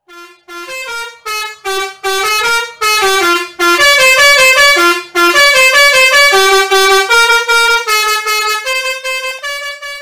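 Telolet Basuri V3 multi-tone bus horn playing a fast tune of short, quickly changing notes, loud and clear, thinning out near the end.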